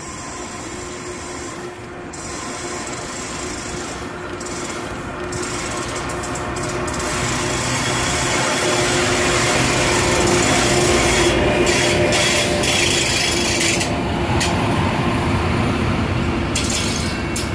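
An electric locomotive hauling Intercity passenger coaches runs through the station. Its rolling noise grows louder to a peak as the locomotive passes, with a steady hum underneath, then the coaches keep rushing by.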